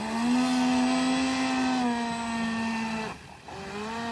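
Electric drive motor of an Amewi Princess 960 mm RC yacht, stock motor and ESC on a 4S LiPo, running at high throttle with a steady high whine. About three seconds in the throttle is cut for a moment, then the whine comes back, rising in pitch.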